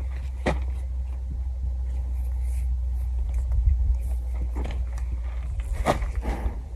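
Steady low wind rumble on the microphone, with a few soft clicks and rustles as a horse's lead rope and reins are handled.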